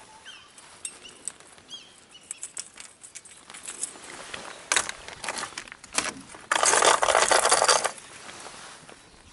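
Hard plastic tackle box being rummaged by hand: lures and hooks click and clink against the plastic and each other, then rattle densely and loudly for about a second and a half near the end.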